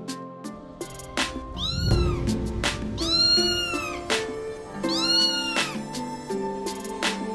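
A cat meowing three times, each meow rising and then falling in pitch, over background music.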